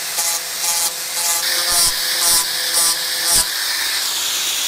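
Angle grinder with a sanding disc running and pressed in short repeated strokes, about two a second, against the rough-cut ribs of a ribbed plastic riser, smoothing them so a grommet gasket can seat. The strokes stop a little after three seconds in and the grinder runs on without touching the work.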